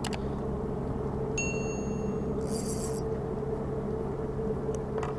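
A steady low engine-like hum, with a short ringing metallic ding about one and a half seconds in, then a brief rustle.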